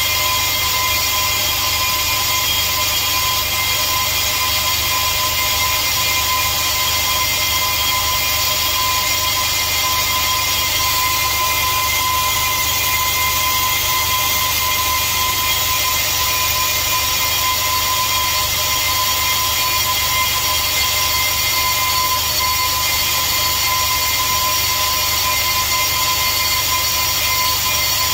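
Brake lathe spinning a new Zimmermann brake disc as it is skimmed true to cure runout: a steady machine whine with a high hiss over it.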